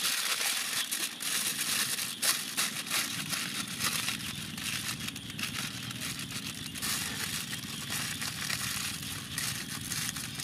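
Aluminium foil crinkling and crumpling in irregular crackles as hands wrap it around a chicken and press it tight for roasting.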